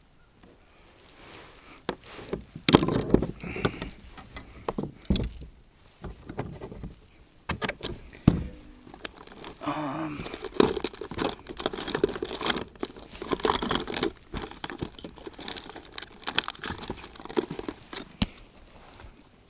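Irregular close-up handling noise: rustling and crinkling with scattered clicks and knocks, as fishing gear and clothing are moved about.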